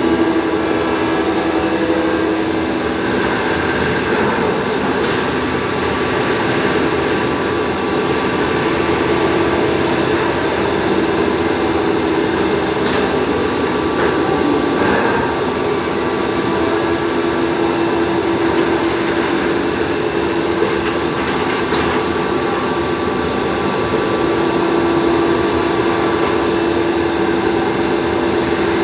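CNC drilling machine running steadily, a continuous machine noise with a held hum and faint occasional ticks.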